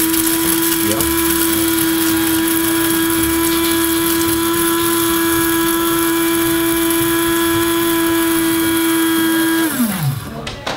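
Hamilton Beach 80393 electric blade coffee grinder grinding a batch of coffee beans, its motor running loud and steady at one pitch. Near the end it switches itself off and winds down with a falling pitch: the grinder's automatic shutoff at the end of the grind cycle.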